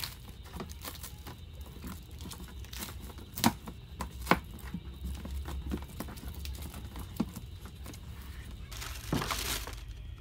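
Plastic film wrapped around a ride-on car seat crinkling and crackling as it is handled, with a couple of sharp clicks a few seconds in and a longer rustle about a second long near the end.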